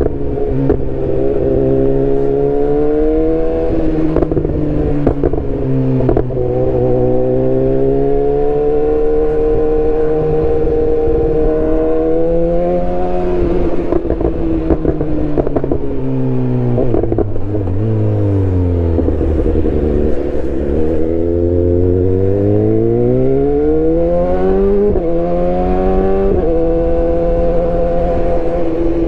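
2018 BMW S1000R's inline-four engine running loud, its note rising and falling smoothly with the revs. Near the middle the pitch sinks low and then climbs back up over a few seconds.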